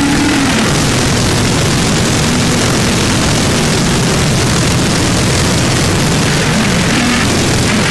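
Harsh noise music: a constant, loud wall of distorted noise filling every register, with a low wavering drone underneath. A steady low hum breaks off about half a second in.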